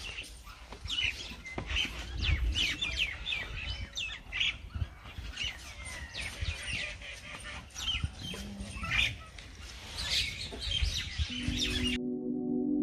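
Many small birds chirping and twittering in quick, high calls over a low, uneven rumble. Near the end the birdsong cuts off suddenly and ambient music with a sustained singing-bowl-like ringing tone begins.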